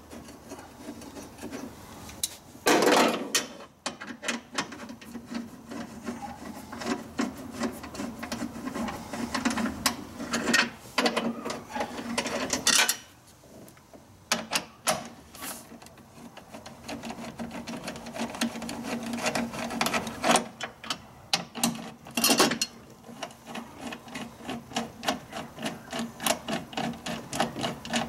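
Hand ratchet clicking rapidly as the battery hold-down bolts are backed out, in runs of fast clicks with a short pause a little before the middle and a few louder knocks of the tool against the bracket.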